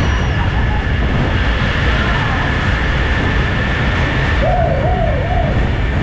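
Roller coaster train running along its steel track, heard from the front car as a steady loud rumble of wheels and rushing air. About four and a half seconds in, a few short wavering whoops rise and fall over it.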